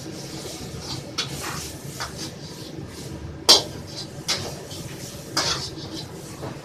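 Metal ladle clanking and scraping against a wok during stir-frying, several separate strikes over a steady rushing background, the loudest clank about three and a half seconds in.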